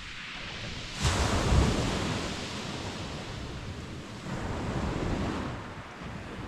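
Waves breaking on a shingle beach: one crashes about a second in and washes back, and another surges around four seconds in, with wind buffeting the microphone.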